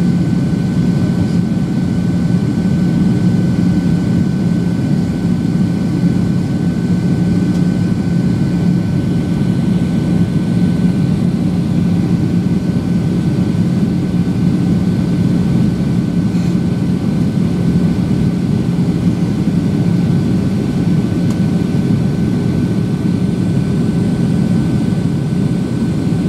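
Cabin noise of a Boeing 737-800 in flight: the steady drone of its CFM56-7 turbofan engines and airflow rushing past the fuselage, with a thin steady whine above it.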